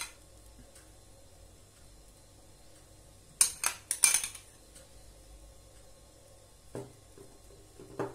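Metal spoon clinking and scraping against a glass bowl while yogurt is scooped out: a quick run of four or five sharp clinks about three and a half seconds in, then two softer knocks near the end.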